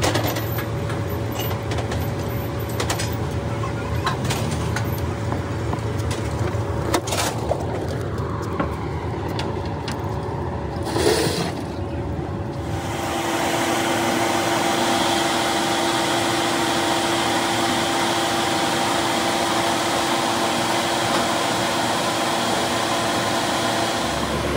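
Workshop machinery: scattered knocks and clanks over a low hum, then about halfway a machine starts running steadily with an even whirring hum.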